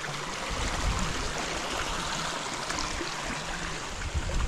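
River water flowing steadily, a constant rushing, with an uneven low rumble underneath.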